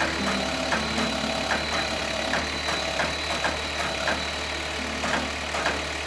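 Diesel truck engine of an aerial-lift bucket truck idling while its hydraulic boom is lowered: a steady low hum with a thin high whine and light, regular ticks.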